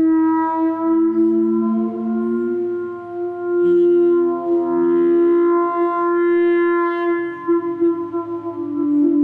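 Theremin music: slow, long-held notes, each sustained for a second or more, moving gradually from pitch to pitch.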